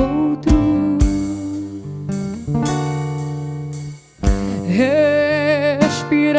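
Acoustic guitar playing chords in an instrumental passage of a slow song. A held melody note that wavers comes in about three-quarters of the way through.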